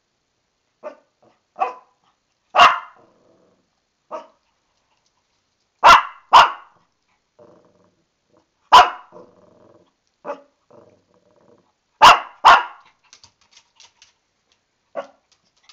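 A Shih Tzu puppy barks in sharp yaps, about eleven in all, some single and some in quick pairs, with low growls between them. The barking is agitated protest at being stuck in an empty bathtub.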